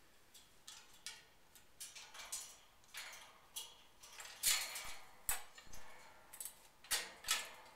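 Female eclectus parrot moving about a metal cage: irregular clicks and taps of beak and feet against the bars, perches and toys, with a couple of louder knocks about four and a half seconds in and near the end.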